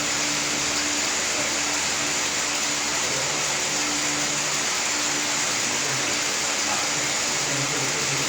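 A steady rushing hiss at an even level, with a faint low hum that comes and goes underneath.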